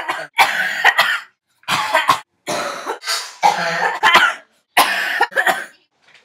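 A person coughing in about five separate bouts of harsh, noisy coughs, each bout ending abruptly in silence. A cough that came with a throat virus.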